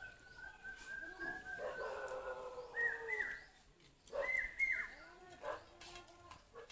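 High-pitched animal whining: a long, slowly falling whine, then a few short rising whines about three and four seconds in.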